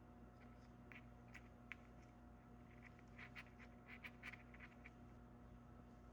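Near silence: a faint steady electrical hum with a scatter of soft, scratchy little ticks, like small parts being handled at a workbench.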